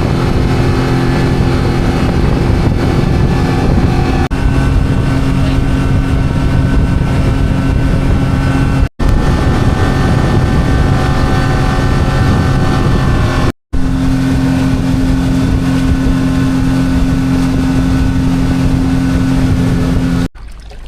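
Engine running steadily at a constant pitch, heard in several clips joined by hard edits, with brief drop-outs about 9 and 13.5 seconds in.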